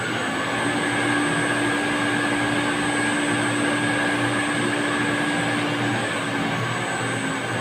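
Water pump and its pipework running: a steady whirring hiss with a low hum in it that stops about six seconds in.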